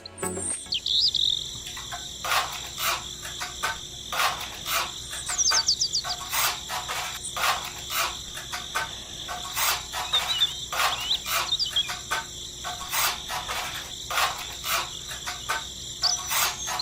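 Steady high-pitched insect chirring, with a few short bird-like chirps and a run of irregular sharp knocks or taps, about one to two a second.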